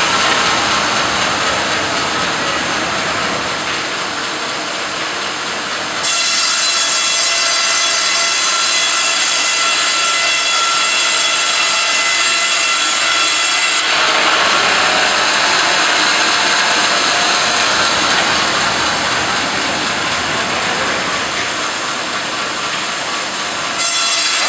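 Mebor horizontal band sawmill running and cutting a squared timber beam: a steady hiss with several steady high whining tones. The sound changes abruptly about six seconds in, growing louder and brighter, and again about fourteen seconds in.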